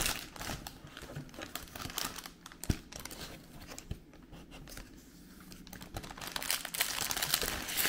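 Grocery packaging crinkling and rustling as produce is handled and unpacked on a table, with a few light knocks. The rustling is sparse in the middle and picks up again near the end.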